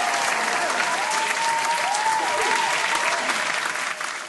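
Crowd applause laid over the photo montage as a sound effect, fading out near the end.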